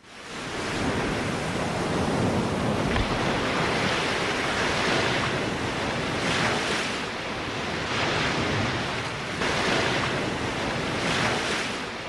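Ocean waves washing in: a steady rushing noise that swells and ebbs every couple of seconds.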